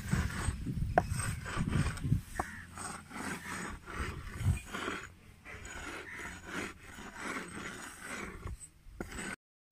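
Charcoal ground by hand on a flat rock with a stone: repeated rasping, scraping strokes as the stone is rubbed back and forth, crushing the charcoal into fine powder. There are a couple of sharp clicks, about a second in and again about two and a half seconds in.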